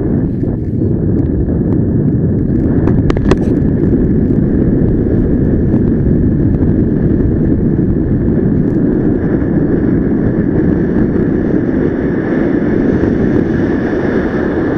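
Airflow rushing over the camera's microphone in paraglider flight: a loud, steady wind roar with a faint steady high tone, and a couple of sharp clicks about three seconds in.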